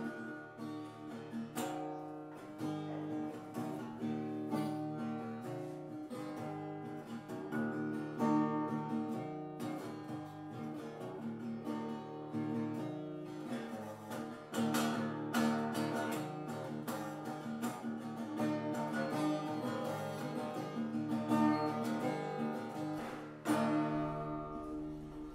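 Improvised acoustic guitar music on a koa-wood guitar, plucked and strummed, with notes ringing over one another and a sharp attack every second or so.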